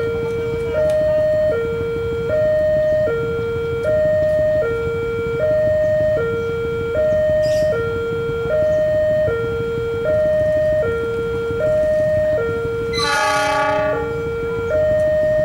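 Railway level-crossing warning siren sounding a steady two-tone alternation, high then low, switching about every 0.8 seconds, over the low rumble of an approaching train. A short, loud horn blast comes in near the end.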